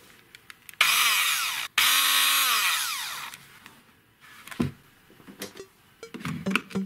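Polaris 750 W hand blender motor, with no attachment fitted, run at high speed in two short goes: about a second, a brief cut-out, then about a second and a half before it winds down with falling pitch. Afterwards there are a few light knocks and clicks from handling the plastic housing.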